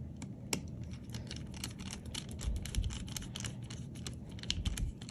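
Precision screwdriver turning a tiny screw into a laptop's M.2 NVMe drive mount, a replacement for a missing screw: a run of faint, irregular small clicks and ticks as the bit works, with a couple of soft low bumps.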